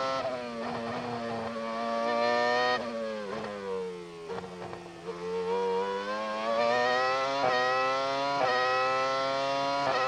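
1999 McLaren-Mercedes Formula One car's V10 engine heard onboard at racing speed. It revs up through a gear change, drops through several quick downshifts under braking about three seconds in, pulls low through a slow corner, then climbs again with upshifts near the end.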